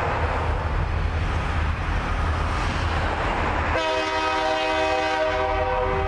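Approaching diesel freight locomotive rumbling, then sounding one steady horn blast from about two-thirds of the way in, held on, as it nears the grade crossing.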